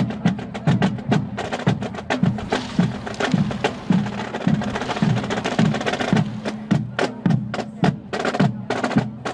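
Marching drum line playing a cadence: rapid snare drum strokes over a steady, regular beat of bass drums.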